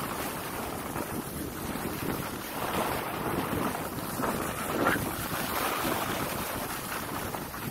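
Wind rushing over the microphone while skiing downhill, mixed with the hiss and scrape of skis on packed snow, swelling a little with the turns about three and five seconds in.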